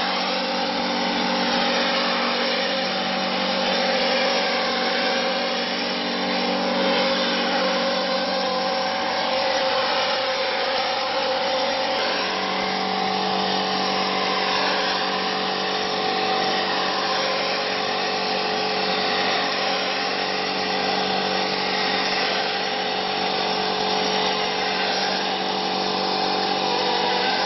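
Mortar plastering spray machine running as the spray gun coats a wall: a steady machine hum under a continuous hiss of spraying. The hum's tone shifts about twelve seconds in.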